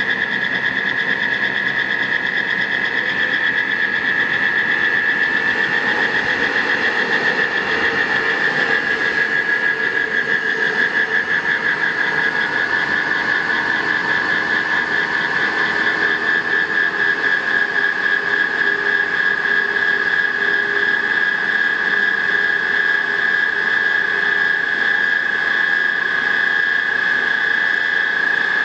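Alfa Laval BRPX309 disc-bowl centrifuge running on test, its electric motor and drive giving a steady, high-pitched whine with a fast flutter in it. The whine drops slightly in pitch about ten seconds in.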